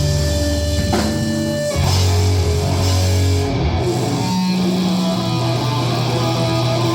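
Live punk rock band playing, with distorted electric guitar and bass on long held notes that change every second or two. The recording sounds poor.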